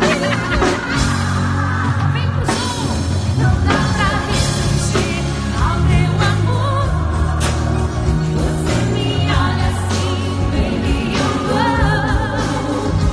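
Loud pop music with singing over a heavy bass line and drum beat, played through a concert hall's sound system.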